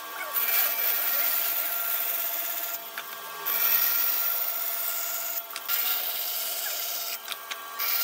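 Band saw running and cutting into wooden boards. There are several short cuts, with brief breaks where only the motor and blade hum is heard.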